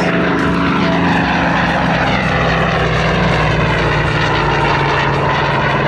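A Vought F4U Corsair's radial engine and propeller running steadily in a low flyby, with the pitch sinking slightly as it passes.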